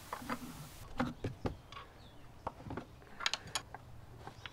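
Hands working at a hose fitting on the engine: a string of irregular light clicks and taps.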